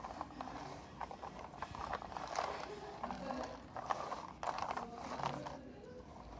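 Plastic toy truck being pushed back and forth over a carpet, its wheels and body rattling and clicking in uneven bursts.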